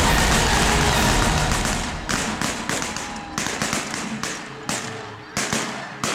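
A large flock of snow geese calling in a dense din that fades after about two seconds. About seven sharp bangs at uneven intervals cut through it from about two seconds in.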